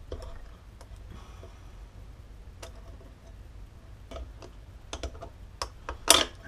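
Scattered small metallic clicks of circlip pliers spreading a large circlip and working it onto a motorcycle's rear sprocket carrier hub, with one louder metallic snap about six seconds in as the circlip goes into place.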